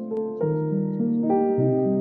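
Gentle instrumental background music, with sustained keyboard notes changing every half second or so.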